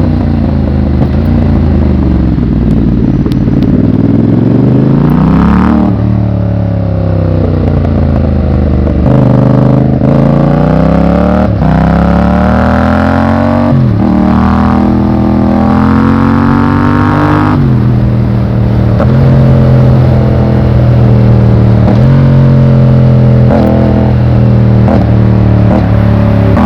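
Yamaha MT-07's parallel-twin engine under way, revving up through the gears. Its pitch climbs and drops sharply at each upshift, then it holds fairly steady with small throttle changes.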